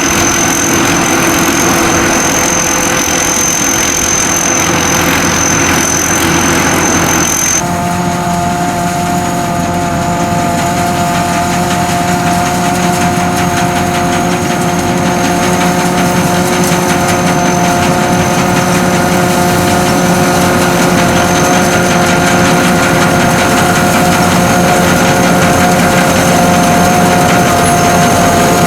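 SAKPATTANA SS-200 mini combine harvester running steadily, its engine and machinery giving a steady drone with a thin high whine. About a quarter of the way in the sound changes abruptly to a different steady note.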